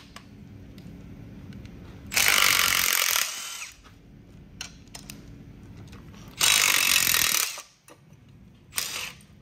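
Milwaukee cordless impact tool hammering in two bursts of about a second each, a few seconds apart, then a brief third burst near the end, backing out the water pump bolts on an engine.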